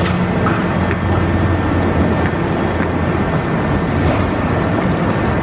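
Diesel engine of a tracked demolition excavator running steadily with a low hum while it works its crusher arm.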